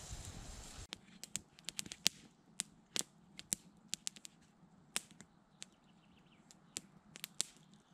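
Wood campfire crackling: sharp, irregular pops, a few every second. Before them comes a brief steady rushing noise that cuts off about a second in.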